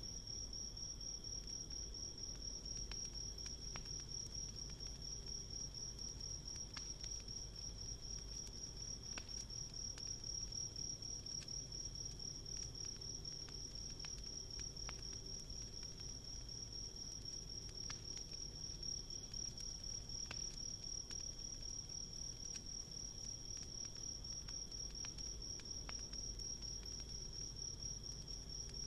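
Crickets trilling steadily in a high, finely pulsing chorus, with sparse soft crackles and pops from a wood campfire.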